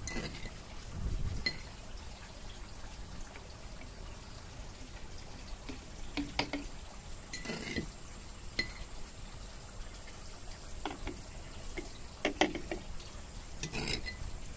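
A metal spoon clicking and tapping against plastic bottles, with small splashes and drips as spoonfuls of a mixture are tipped into water-filled plastic bottles. The taps come one at a time, irregularly, every second or two.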